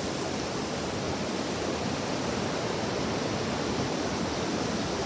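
Strong gusting wind during a high wind warning: a dense, steady rush of noise with no breaks.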